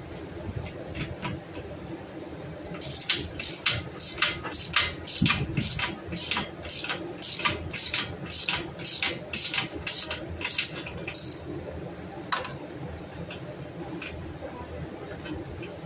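Socket ratchet with a 19 mm socket clicking as it backs off the nut on a boat trailer's bow roller bolt. The clicks come in quick, regular strokes, about three a second, starting about three seconds in and stopping about eleven seconds in.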